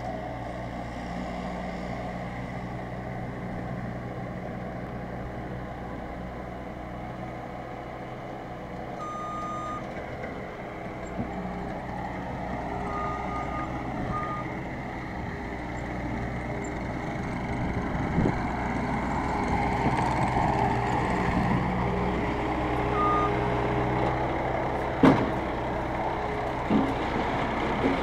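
Diesel engines of a skid steer and a roll-off truck running steadily, with a backup alarm beeping in several short runs. A few sharp clanks come in the second half, the loudest a few seconds before the end.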